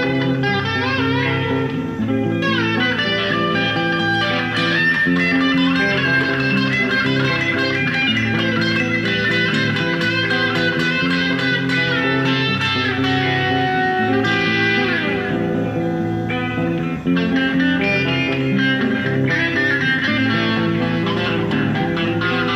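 Electric guitar playing held, sustained notes, with long downward pitch slides about two seconds in and again around fourteen seconds in.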